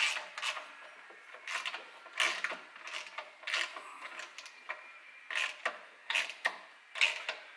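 Socket ratchet clicking in repeated short strokes, in runs with brief pauses, as exhaust mounting bolts are wound in by hand.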